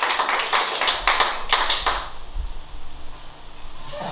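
Small audience applauding, the clapping dying away about two seconds in.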